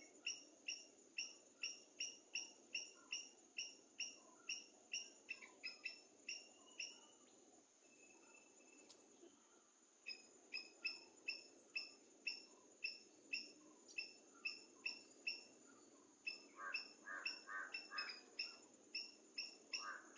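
A bird repeating a short, sharp call note about two or three times a second, breaking off for about three seconds midway and then resuming. A second, lower call with fast pulsing notes joins near the end, over a faint steady high hiss.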